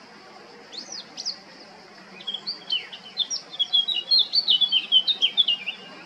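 Male Eurasian blackcap singing: two short high notes about a second in, then a fast warbling phrase of many quick notes jumping up and down in pitch, lasting about three and a half seconds.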